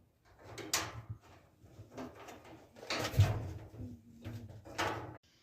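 Knocks, scrapes and rattles of dryer parts being handled and fitted together, with three louder clatters, the loudest about three seconds in.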